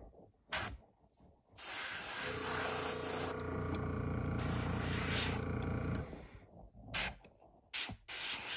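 Airbrush spraying paint: a long steady hiss of air lasting about four seconds, with a steady hum underneath, then a few sharp clicks and a second hiss starting near the end.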